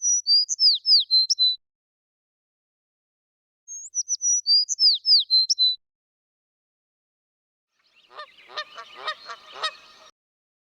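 A songbird singing the same quick, high whistled phrase twice, each about two seconds long, with a pause between. Near the end comes a different, rougher animal call of several quick pulses lasting about two seconds.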